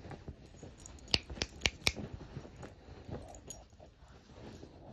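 Small dog rummaging in bedding on a bed, the covers rustling, with a quick run of four sharp clicks about a second in and a few softer ones after.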